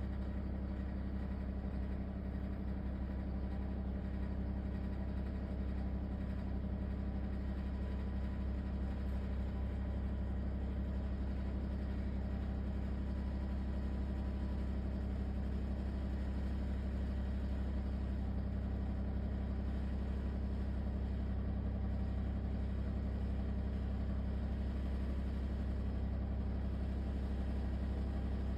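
LG ThinQ WSES4728F wall oven running with a steady, low buzzing rattle that does not change, the horrible rattling noise that the owner takes for a fault.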